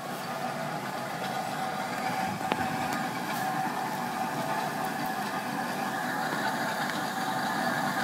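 Steam ploughing engine coming slowly along a road with a car just ahead of it: a steady mechanical running sound that grows slowly louder as they approach. A single sharp click comes about two and a half seconds in.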